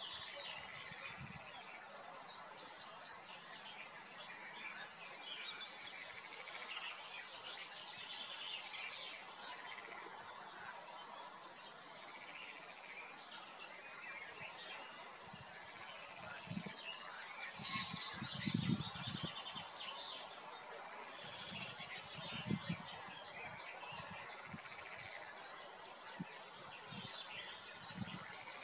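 Songbirds singing and calling, with many chirps and fast trills throughout. Several low rumbles break in, the loudest about two-thirds of the way through.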